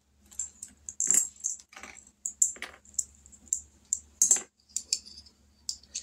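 Paper envelopes and cash being handled, rustled and shuffled together in short, irregular bursts, with a few light clicks and taps.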